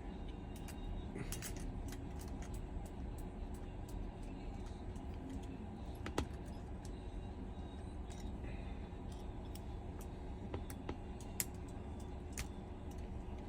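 Scattered small, sharp clicks and taps of metal precision tools on an iPhone 11's internal parts while the screen connector plate's screws are taken out and the display is disconnected, over a steady low background hum.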